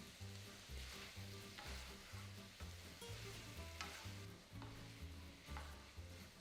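Food sizzling steadily as it fries in a pan, stirred now and then with a few short scrapes of a utensil.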